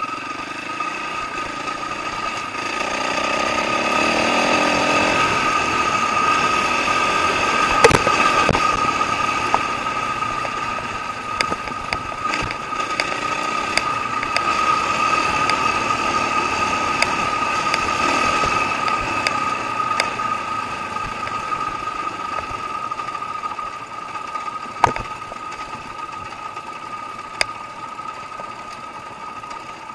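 Dirt bike engine running while the bike is ridden over a dirt trail, rising in pitch as it is revved a few seconds in, then easing off. Sharp knocks and rattles from the bike over the rough ground, loudest about eight seconds in and again near the end.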